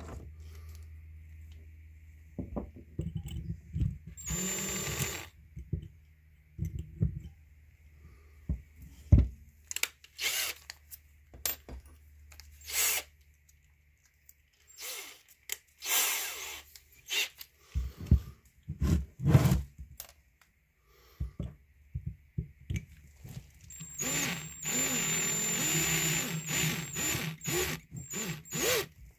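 Cordless drill drilling out a lead plug in a Weber IDA carburetor body, in short runs: a brief one a few seconds in and a longer steady run with a high whine near the end. Between the runs come clicks and knocks of the carburetor and tools being handled.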